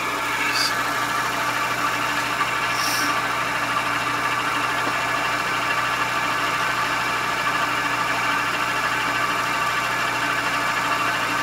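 Milling machine spindle running steadily with an indexable carbide face mill turning: an even mechanical hum and whir that does not change.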